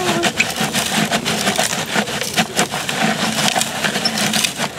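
Sand grating and pouring out of the turning plastic drum of a Tonka Steel cement mixer toy: a steady, gritty crackling scrape.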